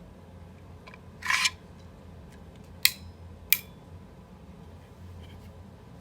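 Handling noise: a brief scrape about a second in, then two sharp clicks about two-thirds of a second apart.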